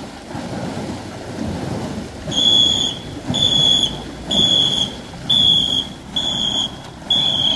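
A whistle blown in short, even blasts about once a second, starting about two seconds in, over a steady noisy background. It is typical of the pacing whistle that sets the stroke rhythm for ngo-boat paddlers.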